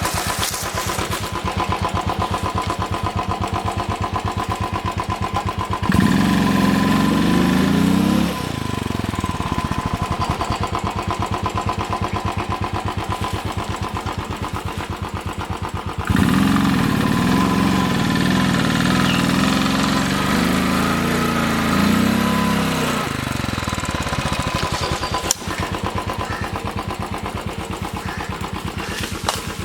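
Royal Enfield Thunderbird 500's single-cylinder engine running with a steady rapid thump, revved up twice: briefly about six seconds in, and for several seconds from about sixteen seconds in.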